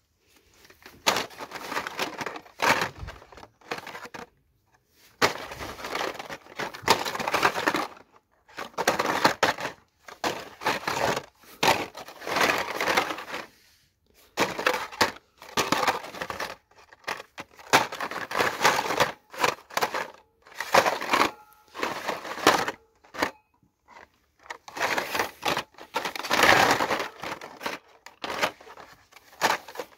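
Hot Wheels blister packs, plastic bubbles on cardboard cards, rustling and clattering against each other as they are rummaged through and picked up in a wire bin, in irregular bursts with short pauses.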